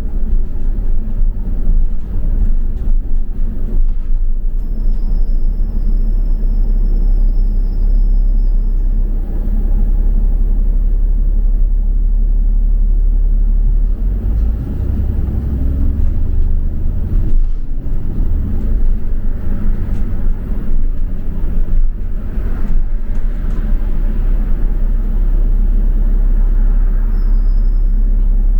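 Double-decker bus running on the road, heard from inside as a steady low engine and road rumble. A thin high whine sounds for a few seconds about four seconds in, and two short high chirps come near the end.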